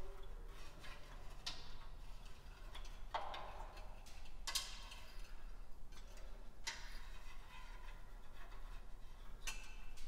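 Faint, scattered clicks and light scraping of a replacement crankshaft position sensor and a magnetic pickup tool knocking against metal as the sensor is worked up into its bore on the engine block by hand; about five distinct clicks at uneven intervals.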